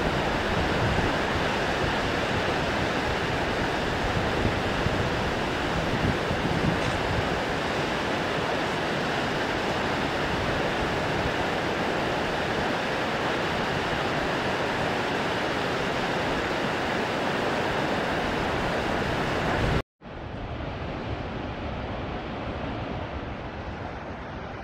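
Steady rush of a large waterfall, Shōmyō Falls, falling water making a dense, even noise. About 20 seconds in it cuts off abruptly and gives way to a quieter, duller version of the same kind of noise.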